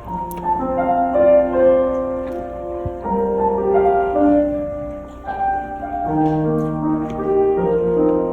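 Piano playing a slow passage of held chords and melody notes, changing about once a second.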